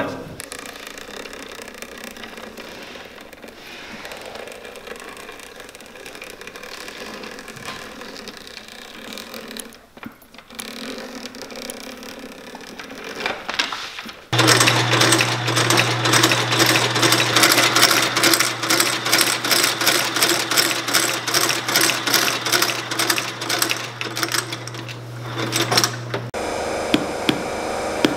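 Shoe-repair outsole stitching machine running: a steady motor hum under a rapid, even clatter of several stitch strokes a second, starting about halfway through and stopping abruptly about twelve seconds later. Quieter handling sounds come before it.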